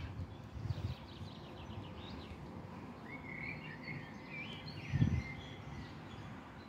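Songbirds singing over a steady outdoor background: a quick run of high chirps about a second in, then a warbling song phrase from about three to five seconds. A short low thump near five seconds is the loudest sound.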